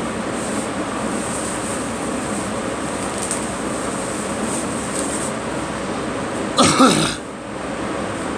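A person coughs about six and a half seconds in, a short double cough with a voiced edge, over a steady background hiss.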